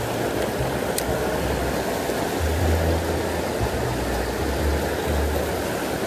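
Mountain stream rushing over rocks and a small cascade, a steady wash of water, with a low rumble coming and going underneath and a single sharp click about a second in.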